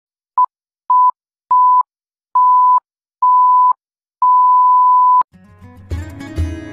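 Film-leader countdown beeps: six beeps at one steady pitch, each a little longer than the one before, ending in a long final beep of about a second. Music fades in just after the last beep.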